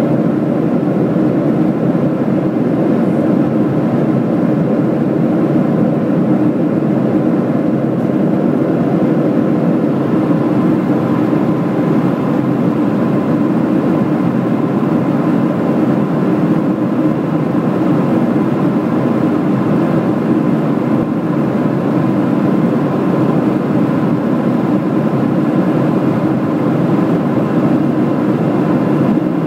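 Steady cabin noise inside a Boeing 737 airliner in flight: the jet engines and rushing airflow make a constant low roar, with a faint steady whine above it.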